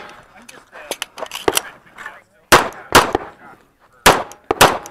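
Magnum Research Desert Eagle 1911 G pistol firing .45 ACP: four loud shots in two quick pairs, about two and a half seconds in and again about four seconds in, with fainter cracks and clicks between.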